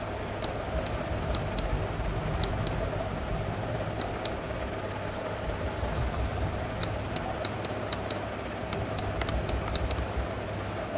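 Irregular sharp clicks of a computer mouse button, some in quick runs, over a steady low electrical hum.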